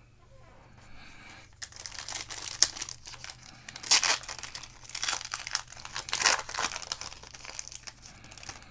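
Foil wrapper of a football card pack being torn open and crinkled by hand: a run of crackling crinkles with a few louder rips.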